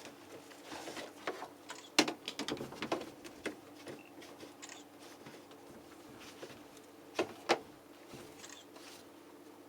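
Scattered clicks and knocks of hands handling the plastic parts of a heat pump tumble dryer's door and filter. The sharpest click comes about two seconds in, with two more close together near the end, over a faint steady hum.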